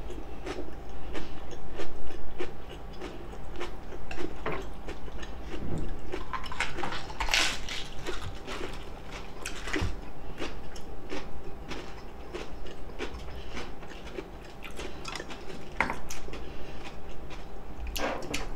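Two people chewing and biting food, with scattered short crunches and light clicks of chopsticks against dishes, and one louder crunch about seven seconds in.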